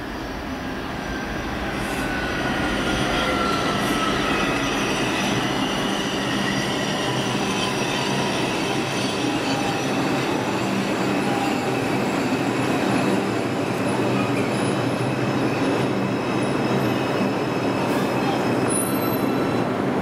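Bombardier R142 subway train with Alstom ONIX AC traction motors running over the rails, its motor whine falling in pitch as the train slows. The sound grows louder over the first few seconds, with steady wheel and rail noise under several high tones.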